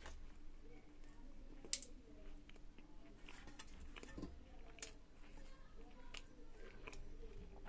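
Faint clicks and scrapes of a utensil against a cake plate and a steel plate as pieces of cream cake are cut and lifted across, with one sharper click about two seconds in.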